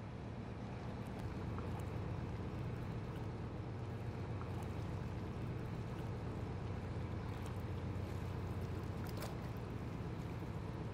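Underwater ambience: a steady low rumble of moving water, with a few faint clicks and one sharper tick about nine seconds in.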